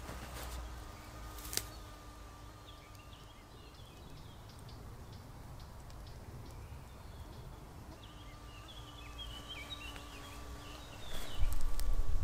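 Outdoor ambience with birds chirping in bursts in the background and a faint steady hum. There is one sharp click about a second and a half in, and near the end a loud low rumble of wind on the microphone.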